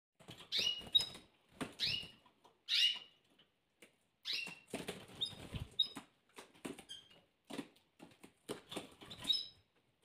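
Domestic canaries giving short, high chirping calls about once a second, with light taps and rustles of the birds moving about and pecking between the calls.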